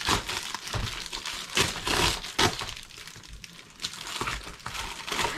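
Plastic Amazon Prime mailer crinkling and rustling as it is pulled and torn open at the top: a string of irregular crackles, loudest about two seconds in.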